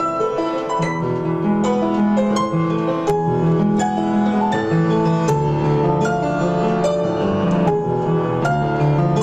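Solo piano playing a melody made from the digits of pi, each digit set to a note of a harmonic minor scale. The right hand plays a steady run of single notes over sustained left-hand chords.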